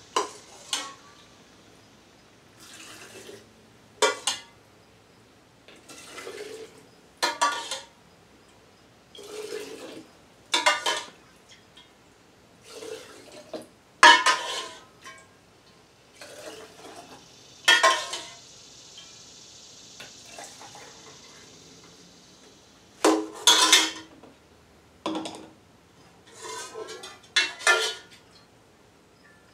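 Metal ladle clinking and scraping against a stainless steel pot as liquid is scooped out, about a dozen sharp knocks at irregular intervals. Liquid pours through a funnel into a glass jar, with one longer steady pour a little past the middle.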